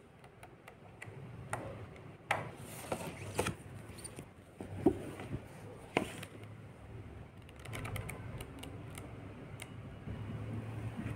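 Paperback workbook pages being turned and the books handled: a string of paper rustles and swishes with soft clicks and knocks, the sharpest about five seconds in.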